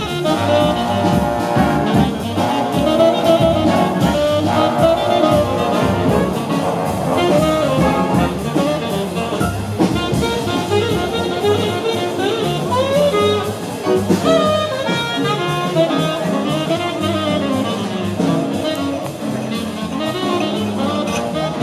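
A jazz big band playing: trumpet, trombone and saxophone sections over a rhythm section, with the drums keeping a steady beat.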